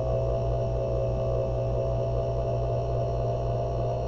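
Watchmaker's lathe motor running at a steady speed, giving a steady hum with a whine.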